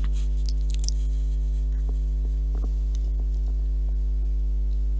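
Steady electrical mains hum, a low buzz with a ladder of overtones, with a few faint clicks over it.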